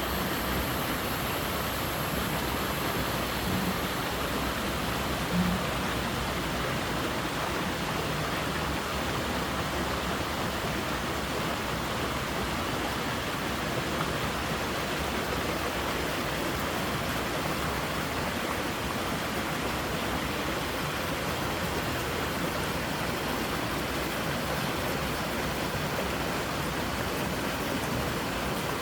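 Water rushing steadily through a creek, a constant even rush.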